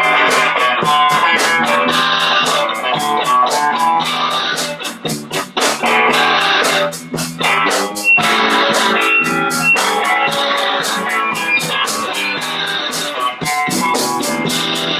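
A band playing a rock tune: electric guitar chords over bass guitar and drums keeping a steady beat of about four strikes a second.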